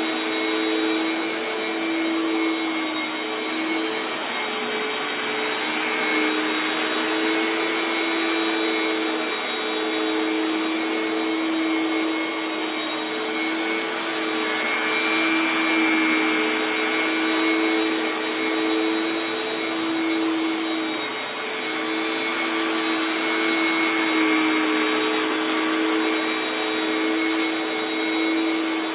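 Upright carpet washer running as it is pushed back and forth over a rug: a steady motor hum and whine under a rushing suction hiss, the hum wavering briefly a few times.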